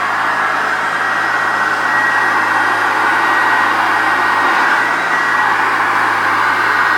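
1985 Hoover Turbopower Junior vacuum cleaner running steadily, its motor rush carrying a thin high whine and a low hum.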